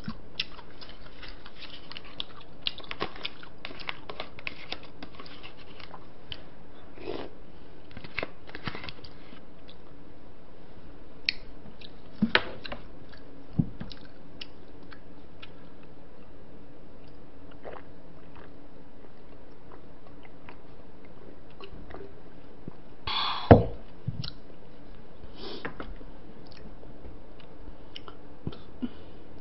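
Close-up eating sounds: chewing and biting on spicy braised seafood and bean sprouts, with scattered small clicks of chopsticks and dishes and one louder knock about two-thirds of the way through, over a faint steady hum.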